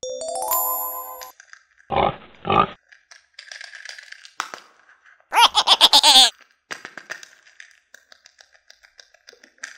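Added cartoon sound effects: a quick rising chime run, then two short pig oinks about two seconds in, then a loud warbling effect around the middle, with small clicks from plastic toy figures being handled.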